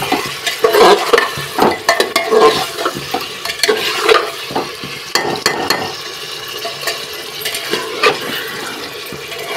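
Steel ladle stirring and scraping cut potatoes through hot spiced oil in an aluminium pressure cooker, with irregular clinks against the pot and the oil sizzling as the potatoes fry.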